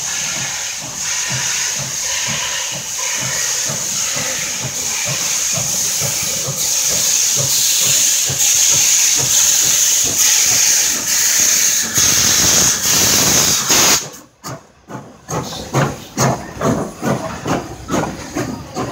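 Nickel Plate Road 765, a 2-8-4 Berkshire steam locomotive, approaching with its cylinder cocks open, giving a loud steady hiss of steam that grows louder as it nears, over a regular low beat. After a break about 14 seconds in, a strong rhythmic pulsing at two to three beats a second as the engine rolls by close.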